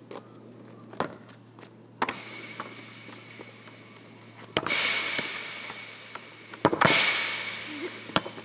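Football being kicked in a street game of one-touch against a wall: sharp knocks from kicks and bounces, and three loud crashes that ring on and fade over a second or two.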